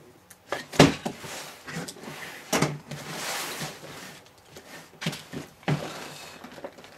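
A large, heavy cardboard box handled on a tabletop: several knocks and thumps as it is tipped on edge, set down and turned, the loudest about a second in, with cardboard scraping and sliding in between.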